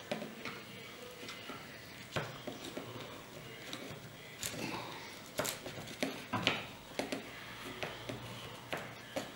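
A small screwdriver prodding and scraping around a servo seated in its wing-tip pocket: irregular sharp ticks and short scrapes, a few louder ones past the middle.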